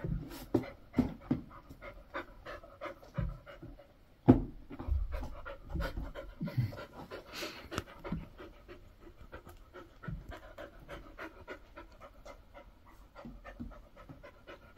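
A Samoyed panting quickly and steadily, out of breath from rough play. The breaths grow fainter in the second half, and there is a single knock about four seconds in.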